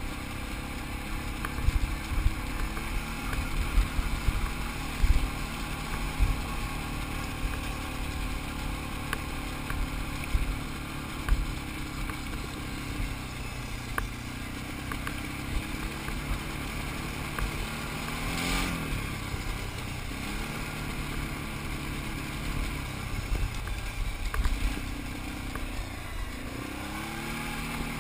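Quad bike (ATV) engine running while riding a rocky dirt track, its revs dipping and climbing about two-thirds of the way through and rising again near the end, with scattered knocks and jolts from the rough ground.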